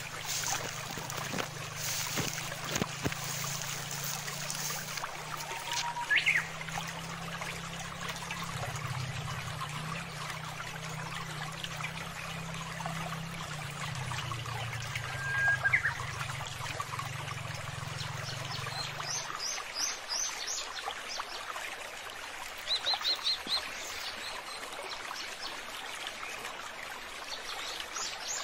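Water flowing and trickling steadily in a channel, with a few short bird chirps and a quick series of chirps late on. A low hum underneath stops about two-thirds of the way through.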